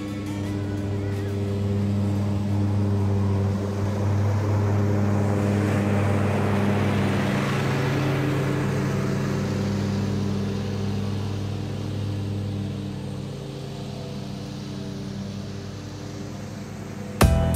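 John Deere Z335E zero-turn mower running while mowing, a steady engine drone with a hiss of the cut over it. It grows louder through the middle as the mower passes close, then fades as it drives away.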